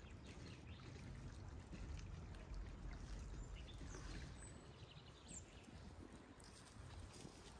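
Faint outdoor ambience: a low rumble typical of wind on the microphone, with a few faint, short high bird chirps about four to five seconds in.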